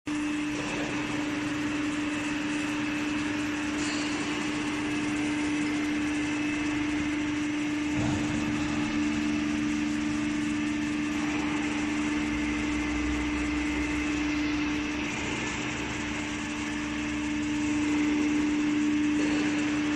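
Hydraulic power pack driving a Hydroman hydraulic cutterhead that spins unloaded in the air: a steady mechanical hum with a constant tone, and a second, lower tone joining about eight seconds in.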